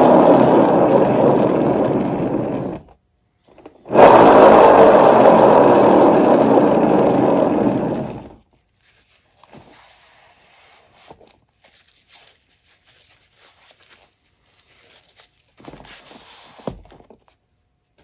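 Spinning turntable under a wet acrylic pour painting, its rotation making a loud rumbling whir in two spins of about four seconds each. Each spin fades and then stops abruptly. After them come only faint handling sounds.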